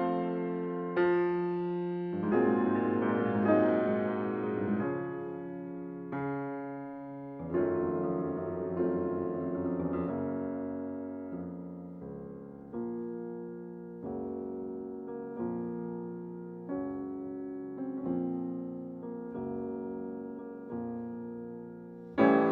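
Background piano music: slow chords struck a little over a second apart, each left to fade before the next.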